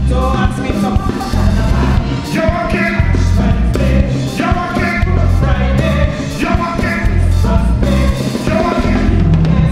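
Live soca band playing with a male lead singer: a strong bass and drum beat, congas, electric guitar and trumpet under the vocal line.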